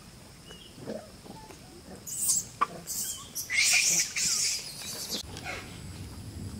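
Macaques screaming in a run of loud, harsh, high-pitched bursts lasting about three seconds, starting about two seconds in, amid a scuffle between monkeys.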